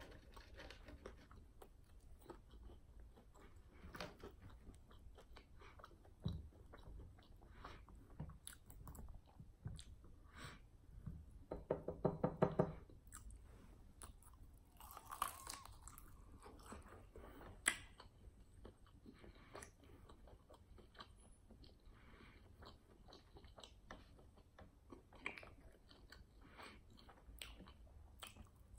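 Close-miked eating of fried chicken wings: a run of small chewing, biting and smacking clicks. About twelve seconds in comes a short pitched sound from the eater's voice, the loudest moment.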